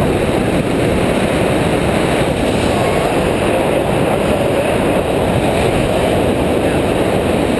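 Airflow buffeting a small camera microphone during a tandem parachute descent under an open canopy: a steady, loud rumble of wind noise with no breaks.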